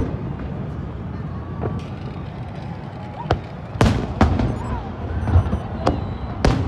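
Aerial fireworks bursting: a steady low rumble for the first few seconds, then about five sharp bangs from about three seconds in to the end.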